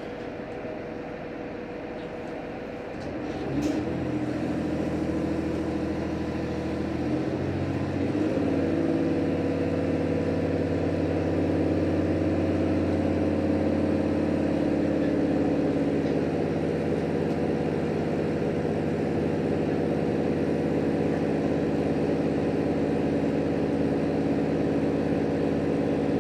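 Diesel engine of a JR Hokkaido H100 diesel-electric railcar throttling up as the train pulls away from a station, after a short click. Its note steps up twice, a few seconds in and again after about seven seconds, then runs steadily under load.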